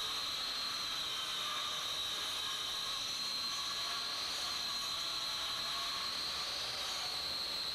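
Steady hiss with a high, slightly wavering tone running through it.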